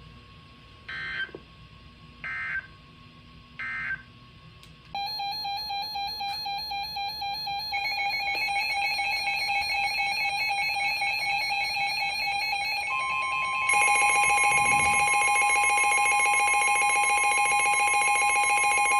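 Emergency Alert System tones: three short digital SAME data bursts about a second apart, then a warbling electronic alert tone. The warbling tone gets louder in steps, and a steady weather-radio alert tone joins in about two-thirds of the way through.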